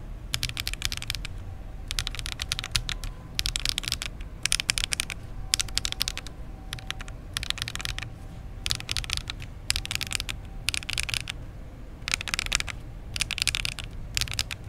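Typing test on an Oasis65 65% mechanical keyboard built without foam on a 1.8 mm PCB: quick bursts of keystrokes with short pauses between them. The clacks have a ringing tone.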